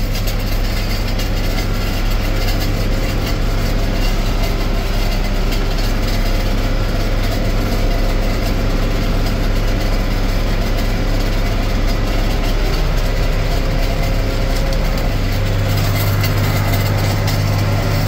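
John Deere 4255 tractor's six-cylinder diesel running steadily under load while pulling a working round baler, heard from inside the cab. Its low hum grows stronger near the end.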